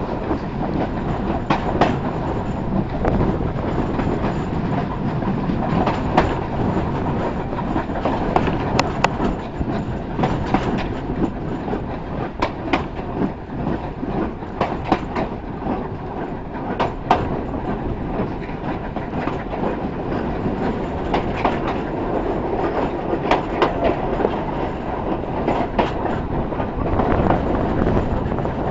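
Railway carriage rolling along the track, heard from an open carriage window: a steady rumble of wheels on rail with irregular clicks and clacks over the rail joints.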